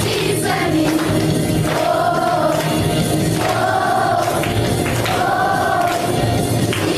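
A school class choir singing in unison over musical accompaniment, holding long notes one after another.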